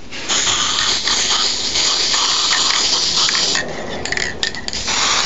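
Aerosol can of black spray primer hissing: one long spray of about three seconds, a few short broken bursts, then another spray starting near the end.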